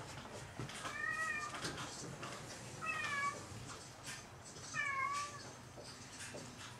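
A domestic cat meowing three times, about two seconds apart: short, high calls that bend in pitch.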